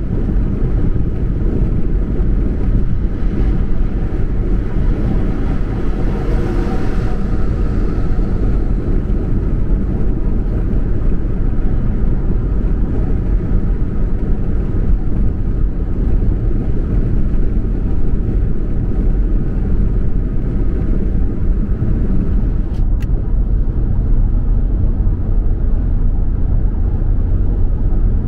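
Car driving along the road: a steady low rumble of tyres and engine, with a brief swell of hiss about six seconds in and a faint tick later on.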